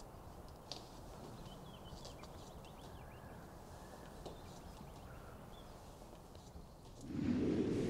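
Quiet room ambience with a few faint, short taps. Music swells in about seven seconds in.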